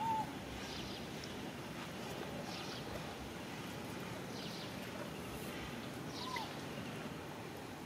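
Short chirping animal calls, one right at the start and another about six seconds in, over a steady outdoor background hiss with fainter high chirps repeating about once a second.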